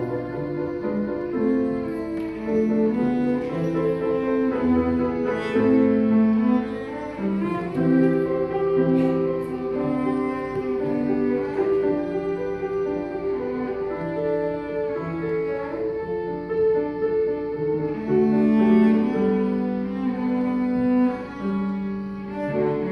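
Cello bowed in a concertino: an unbroken melody of sustained notes, each held about a second or less before moving on.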